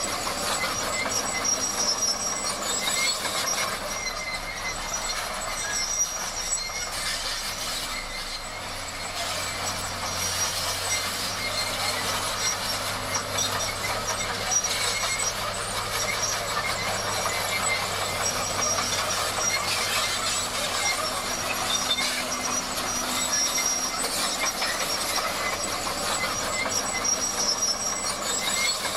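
Bulldozer at work: its steel tracks squeal and clatter steadily over the low run of its diesel engine.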